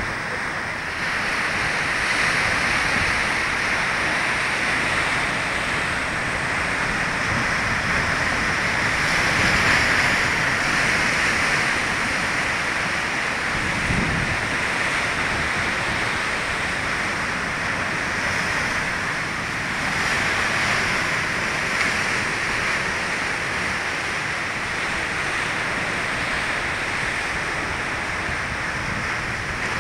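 Heavy sea surf breaking and churning against rocky shore, a continuous rushing roar that swells and eases as waves come in. A single low thump comes about halfway through.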